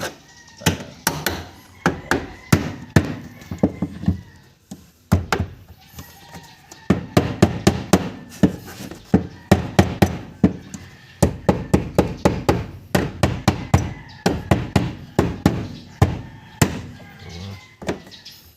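Repeated hard knocks and taps in quick irregular runs of several strikes a second, with short pauses between runs, as from striking or tapping parts during hands-on repair work.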